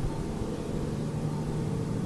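A steady low droning rumble with faint held tones, airplane-like but unchanging: the unexplained continuous hum that went on for hours.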